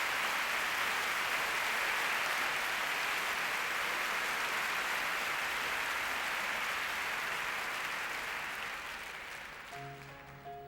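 Concert audience applauding steadily, the applause dying away near the end as a few soft piano notes begin.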